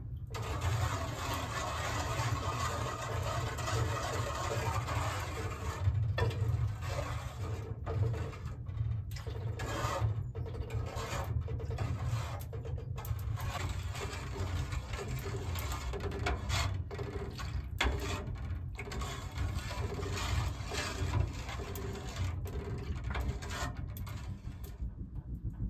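A metal spoon stirring and scraping around a metal bowl of liquid mixture, a continuous rasping scrape broken by many brief pauses, over a steady low rumble.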